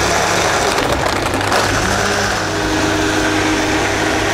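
Storm commercial blender running, churning ice, frozen blackberries and yogurt into a smoothie: a loud, steady motor and churning noise. About two seconds in it settles into a steadier hum as the mix turns smooth.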